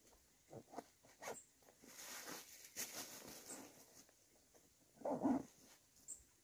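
Backpack being packed by hand: scattered rustles, short clicks and zipper-like sounds as things are handled and stuffed inside, with a louder short sound about five seconds in.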